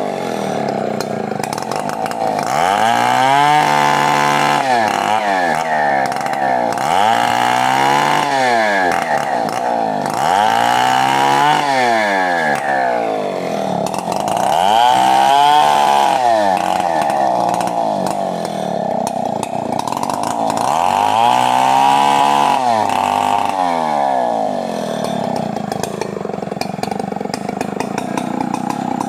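Stihl 070 two-stroke chainsaw running hard while cutting wood, its engine note rising and falling again and again, about every four seconds, as it drops under load and revs back up.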